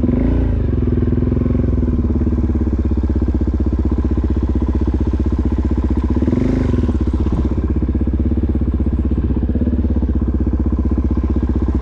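Dirt-bike engine running steadily at low speed, with a short throttle blip just after the start and another about six and a half seconds in.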